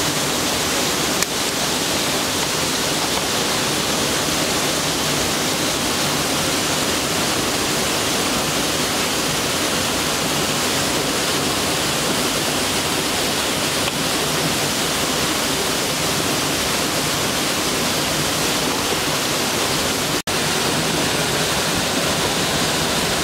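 Steady, loud rush of water from a river waterfall, an even roar with no break except one momentary dropout near the end.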